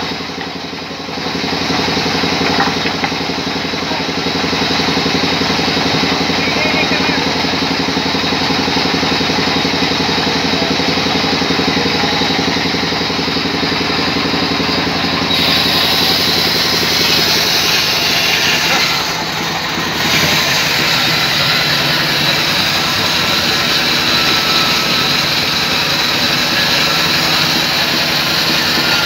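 Sawmill band saw running steadily, its blade cutting lengthwise through a rain tree log. The cutting noise turns sharper and harsher about fifteen seconds in, dips briefly a few seconds later, then carries on.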